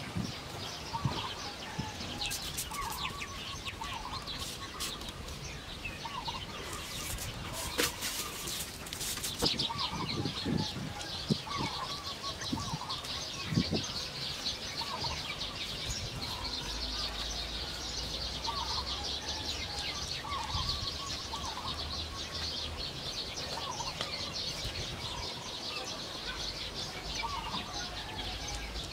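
Birds calling: a short call repeating every second or two over a dense high chirping. Scattered scraping and rustling of dry soil being worked by hand, with a few soft thumps in the middle.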